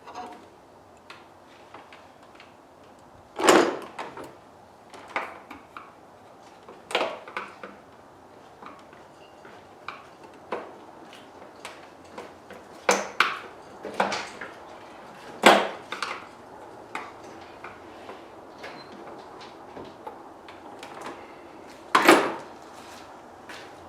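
Irregular clicks and knocks of hard parts and tools being handled, with about five louder knocks spread through the stretch and lighter taps between them.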